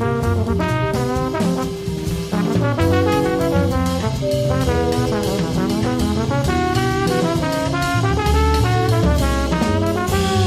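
Jazz quintet playing: trombone lines over piano, vibraphone, acoustic bass and drum kit, with a walking low bass and steady cymbal and drum beats.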